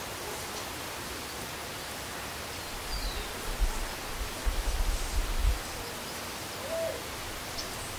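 Outdoor ambience: a steady hiss with irregular low rumbling bumps in the middle, and a faint high chirp about three seconds in.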